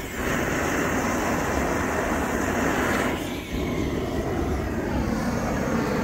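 Long-wand gas torch (a weed-burner type) running with a steady rushing hiss as its flame chars a wooden box. The hiss dips briefly about three seconds in.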